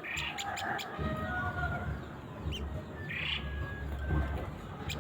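Sogok ontong (little spiderhunter) giving short, sharp, high chip calls in small clusters, a bunch near the start and more a little past the middle. A low rumble runs underneath.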